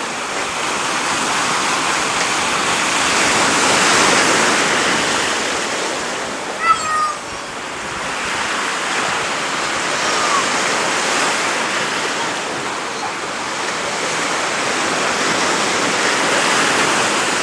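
Sea surf washing in at the water's edge: a steady rushing that swells and eases every several seconds. About halfway through comes one short, sharp, high-pitched sound.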